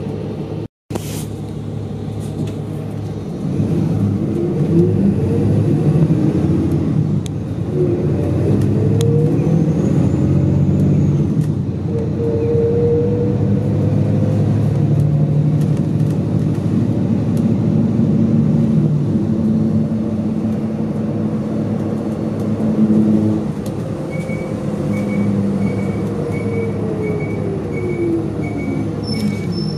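Route bus heard from inside the cabin while under way: its engine drones and rises and falls in pitch as the bus pulls away and changes speed. In the last few seconds a turn-signal indicator ticks steadily, and there is a brief dropout about a second in.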